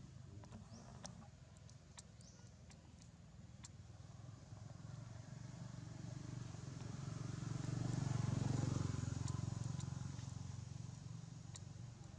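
A motor vehicle passing by: a low engine hum swells to its loudest a little past the middle, then fades away. A few faint clicks in the first few seconds.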